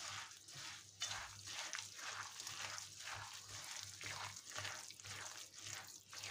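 A hand squeezing and mixing a wet oat, walnut and sugar cookie mixture in a glass bowl, giving a rhythmic squishing and crunching about twice a second.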